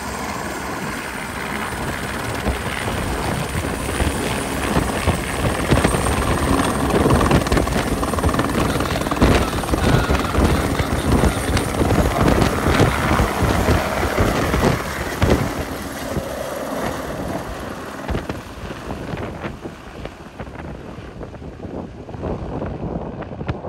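Airbus H125 light helicopter's single turbine and rotor running at takeoff power as it lifts off the pad and climbs away, with the rapid beat of the rotor blades. The sound builds to its loudest around the middle, then fades as the helicopter flies off.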